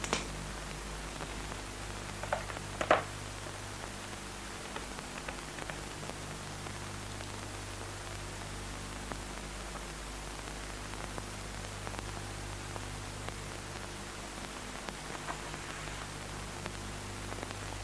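Steady hiss and low hum of an old film soundtrack, with a light switch clicking at the start and a few faint knocks, the loudest about three seconds in.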